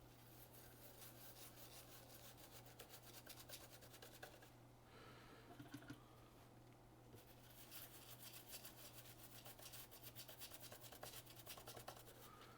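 Faint, rapid scratching strokes of scrubbing on a laptop logic board to clean it after soldering, in two spells with a short pause in the middle, over a steady low electrical hum.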